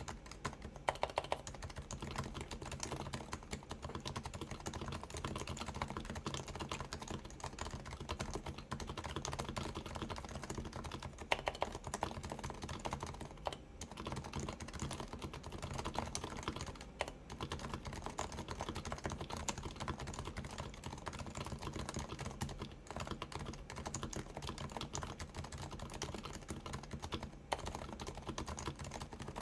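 Continuous typing on a Keyhub Design RF-8X keyboard with 45 g Topre domes, silenced with sliders and rings, under Topre Realforce keycaps: a steady, dense run of keystrokes, with a few louder strokes standing out.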